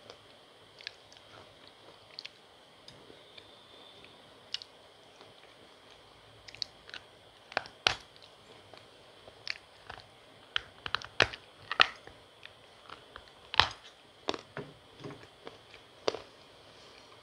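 Close-up crunching and chewing of a dry, powdery lump of slate-pencil paste being bitten off and chewed: a few sharp crunches at first, then many in quick succession as the biting and chewing gets going.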